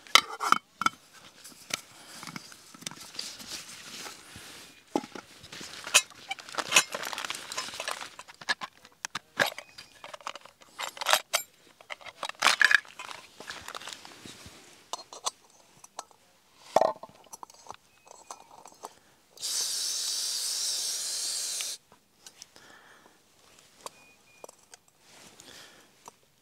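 Clinks, scrapes and rustles of a small metal camping pot and stove set being unpacked and put together on rock, in many short irregular knocks. Shortly after a brief squeak, a steady hiss runs for about two seconds, then cuts off.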